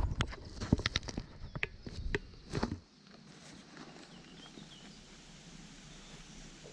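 A quick run of sharp clicks and knocks from handling packbait ingredient packets and containers on a table. It stops about three seconds in, leaving only a faint steady background.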